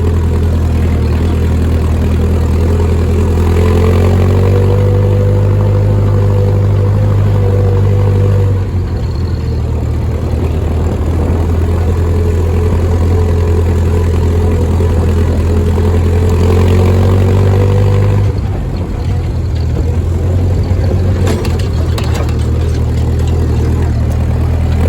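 Ford 2N tractor's four-cylinder flathead engine running steadily under way in third gear. The engine note drops briefly twice, about a third and two-thirds of the way through.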